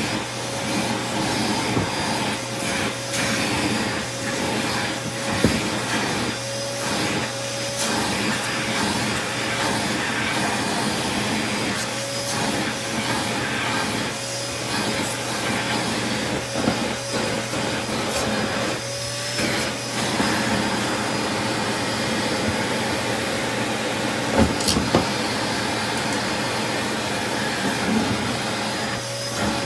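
Vacuum cleaner running steadily with a wavering whine, its nozzle sucking caked drywall dust off a clogged vacuum filter, with a few brief clicks and knocks as the nozzle moves over it.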